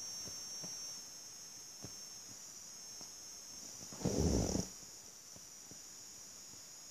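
A hand stroking a sleeping cat's fur right by the microphone: faint room tone with a steady high whine, and a brief rubbing rumble about four seconds in.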